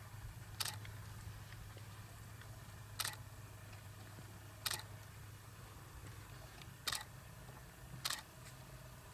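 Camera shutter clicking five times, one to two seconds apart, over a low steady hum.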